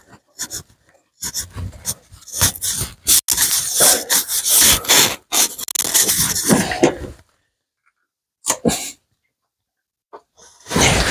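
Pneumatic stapler and its air line: irregular bursts of hissing air mixed with sharp clicks and knocks, which stop abruptly about seven seconds in. A brief double click follows, then the hissing and knocking start again near the end.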